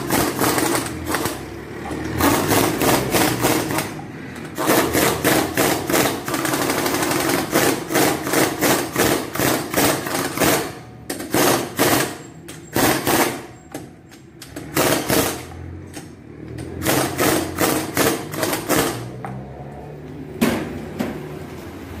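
Pneumatic impact wrench hammering in a series of bursts, some long and some short, as it runs the lug bolts of a car wheel tight while the wheel is refitted.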